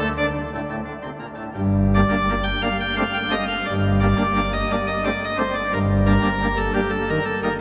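Church organ playing held chords. The first second and a half is softer; then it grows fuller as deep bass notes come in, with heavier low notes about every two seconds.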